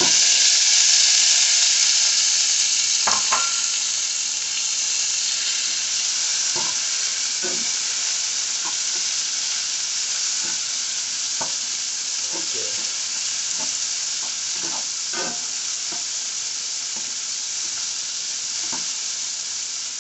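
Sliced onions, sweet peppers and tomato sizzling in hot avocado oil in a nonstick pan, loudest at the start just after the tomato goes in and easing a little. A spatula stirs them, knocking against the pan every few seconds.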